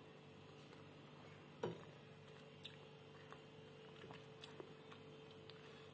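Faint chewing of canned sprat in tomato sauce over a low steady hum, with a soft knock about a second and a half in and a few faint clicks after it.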